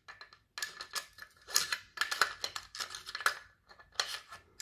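An AR-15 bolt carrier group and charging handle clicking, rattling and scraping metal on metal as they are slid into the upper receiver. The clicks come in quick runs with short pauses between them.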